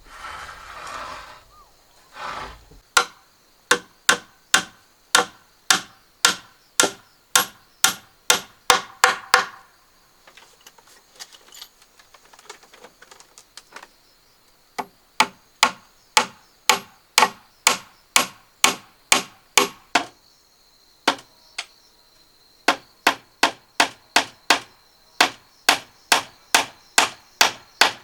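A hammer striking wood in steady runs of about two blows a second, with a pause of a few seconds near the middle filled only by faint small taps.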